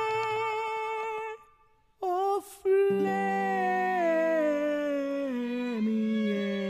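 The closing of a sung ballad: a long held final note that cuts off about 1.4 s in. After a short silence, a slow wordless melody comes in, stepping gradually downward.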